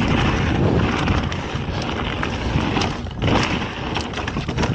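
Wind rushing over the microphone as a mountain bike rolls fast down a dirt singletrack, with the tyres on loose dirt and frequent small clicks and rattles from the bike. The noise dips briefly about three seconds in.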